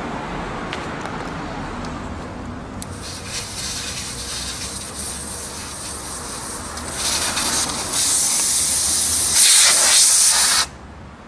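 Air hissing out of a van tyre's valve as it is opened. The hiss starts about three seconds in, grows louder about seven seconds in, is strongest near the end, then cuts off suddenly.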